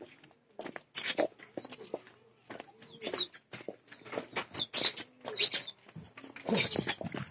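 Birds giving short high chirps, about half a dozen times, over irregular scuffing footsteps and clicks from the phone being carried.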